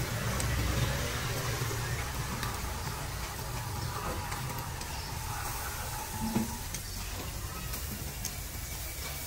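Low rumble of passing street traffic, strongest in the first couple of seconds and easing off, over a faint sizzle of meat on a charcoal grill. A few light clicks and one short knock about six seconds in.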